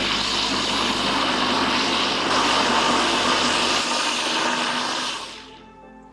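Personal blender motor running steadily at high speed, grinding soaked sago pearls, millet and curd into a fine idli batter. It cuts off about five seconds in.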